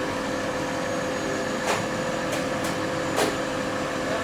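A steady mechanical hum holding a few fixed tones, with four sharp knocks about halfway through.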